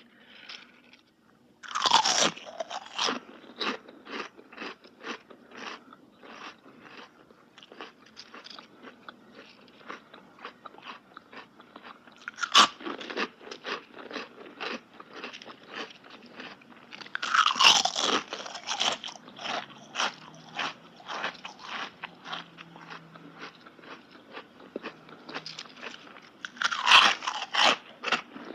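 Someone biting into and chewing crunchy food: a loud crunching bite near the start, a sharp crack about midway, and two more loud bites later. Each is followed by many quick, fading crunches of chewing.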